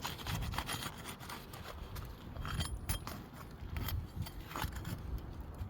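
Shingles being worked loose to break their seal strips: irregular scraping and rubbing with sharp clicks and clinks, over a steady low rumble.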